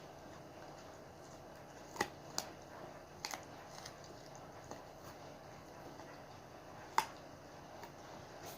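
A dog chewing a chicken foot: faint chewing with a few sharp crunches of bone, the loudest about seven seconds in.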